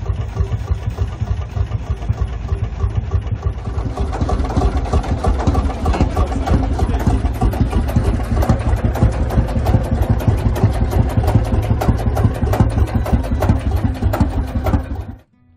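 Lanz Bulldog tractor's single-cylinder two-stroke hot-bulb engine running close by, a rapid, even knocking beat.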